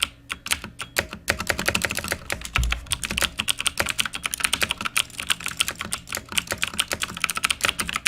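Nixeus Moda v2 mechanical keyboard with clicky Kailh Blue switches, keys pressed rapidly and irregularly in a gaming test, with a low thump about two and a half seconds in.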